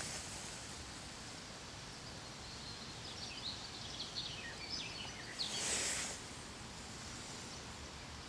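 Outdoor ambience: a steady soft hiss with a run of faint, high bird chirps from about three to five seconds in, and a brief swish of noise near six seconds.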